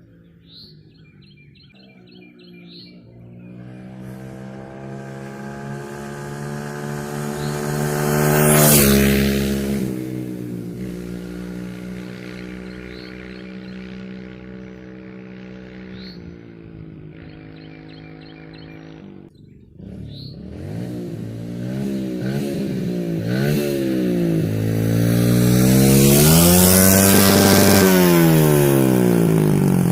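Kawasaki KLX110 dirt bike's small single-cylinder four-stroke engine being ridden. It builds to a close, loud pass about a third of the way in and runs steadily. It drops away briefly about two-thirds in, then revs up and down repeatedly and comes loudest again near the end.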